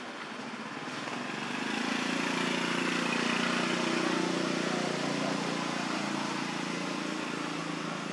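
An engine hum with a steady pitch, growing louder from about a second in and fading toward the end, as of a motor vehicle passing.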